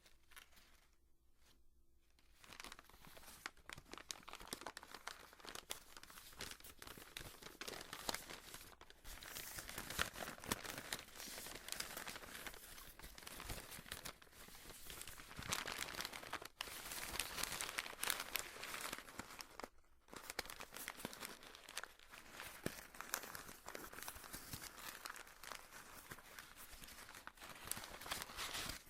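Paper being torn and crumpled by hand up close, a dense crackling rustle. It starts about two seconds in and goes on with a few brief pauses.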